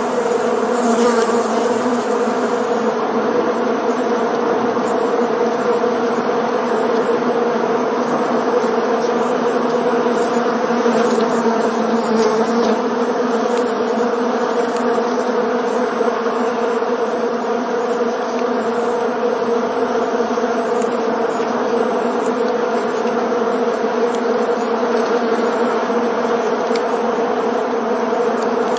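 Swarm of honeybees buzzing: a steady, dense drone of many wingbeats at a constant low pitch.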